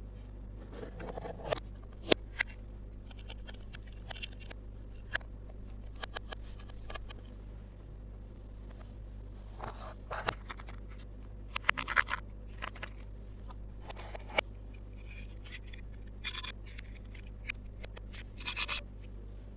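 Small plastic toy pieces being handled and set down: scattered sharp clicks and taps with short scrapes, busier in two spells in the second half, over a steady low hum.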